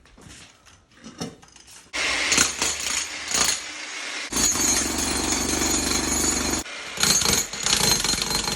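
Jackhammer breaking up a floor around a floor drain. It starts about two seconds in, runs loud and steady, stops briefly and starts again near the end.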